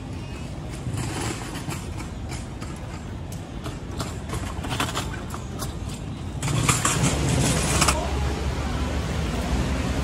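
City street ambience: a steady rumble of road traffic with scattered light clicks and knocks. About six and a half seconds in comes a louder rushing sound lasting about a second and a half, and after it a steady low rush.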